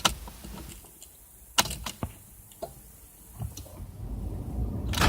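A few sharp clicks and knocks, then a low rumble that builds over the last second and a half and turns into the start of a car engine right at the end.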